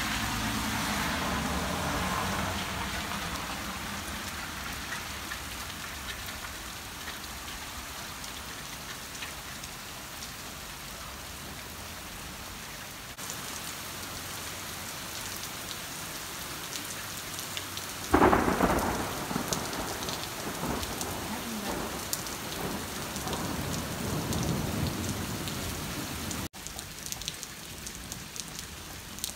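Steady rain falling, with a thunder rumble dying away over the first few seconds. About 18 seconds in comes a sudden loud clap of thunder that rumbles on for several seconds.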